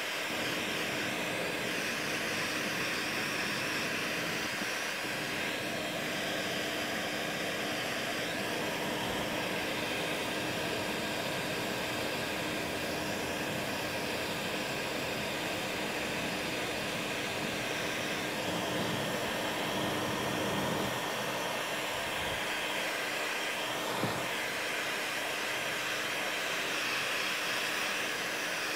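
Electric heat gun blowing steadily, a rush of hot air with a faint constant hum, heating a polyethylene repair strip and the kayak's plastic hull around the scupper hole until the plastic softens for welding.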